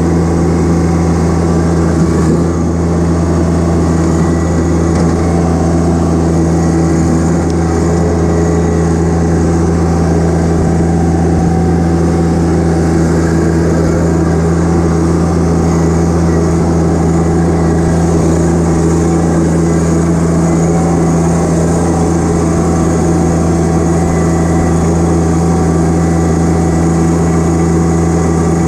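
John Deere 1025R subcompact tractor's three-cylinder diesel engine running steadily at an unchanging speed while the tractor drives, heard loud and close from the driver's seat.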